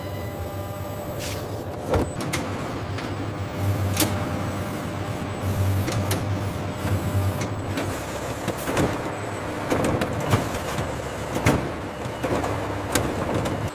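Automated production-line machinery running: a steady low motor hum with irregular sharp mechanical clicks and clacks.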